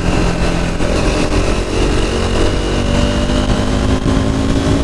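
KTM RC 390's single-cylinder engine pulling under way at road speed, its pitch rising slowly in the second half as the bike accelerates, over heavy wind rush on the microphone.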